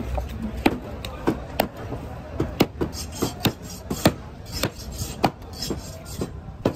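Large curved knife chopping and slicing through a trevally's flesh onto a wooden cutting board: a string of sharp knocks, roughly two a second, with the blade scraping between strokes.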